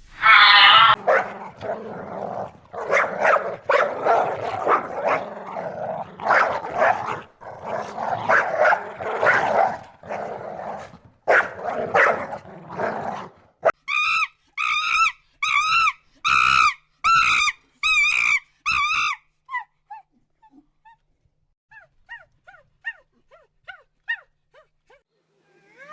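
A dog barking and growling in a dense run of repeated barks. This is followed by a series of short high-pitched calls about twice a second, and then fainter, scattered chirps near the end.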